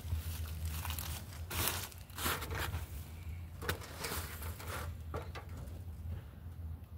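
Irregular bursts of rustling, crinkling noise, heaviest from about one and a half to five seconds in, over a low steady rumble.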